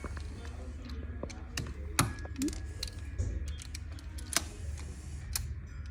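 Scattered small sharp clicks and taps of a screwdriver working on a Wahl Magic Clip cordless clipper's plastic housing, with a few louder clicks standing out, over a steady low hum.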